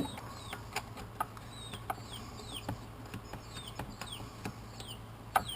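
A small bird chirping over and over, each call a quick falling note, with scattered light clicks of a bolt being turned by hand.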